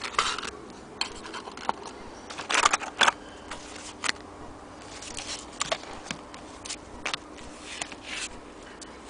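Scattered, irregular clicks and knocks of a vintage Good Companion 3 portable typewriter and its case being handled, with a quick cluster of clicks about two and a half seconds in.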